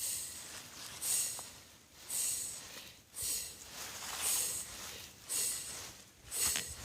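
Dry fallen leaves crunching and rustling in regular swishes, about one a second, like slow steps or rake strokes through a leaf pile.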